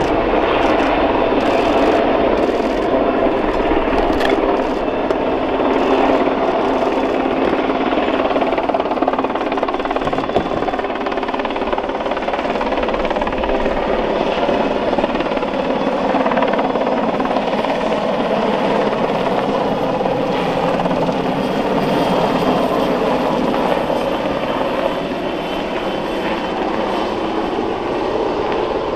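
Westland Sea King Mk48 helicopter's twin turboshaft engines and main rotor running at take-off power as it hovers low and then climbs away. The sound is loud and steady throughout, easing slightly near the end.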